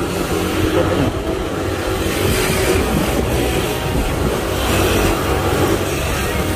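Motor scooter running steadily while being ridden, with road noise.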